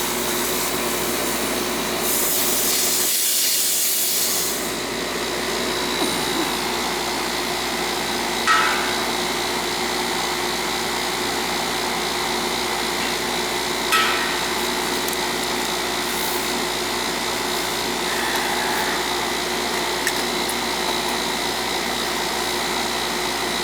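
Coleman central air conditioner's outdoor condensing unit running steadily, its compressor and condenser fan giving a constant hum with several steady tones. A brief hiss comes about two seconds in, and two sharp clicks come later.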